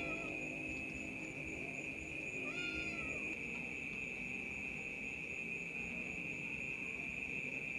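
A cat gives one short meow, rising then falling, about two and a half seconds in, over a steady high trill of crickets.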